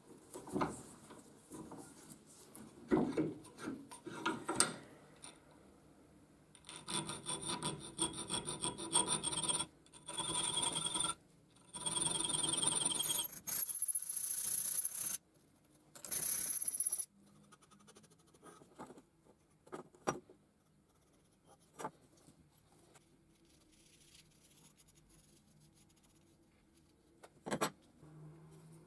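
Round needle file rasping on the edge of a steel knife blank clamped in a vise. The strokes are rapid and come in loud bursts with a high ringing tone, starting about a quarter of the way in and stopping a little past the middle. A few scattered clicks and knocks of handling come before and after.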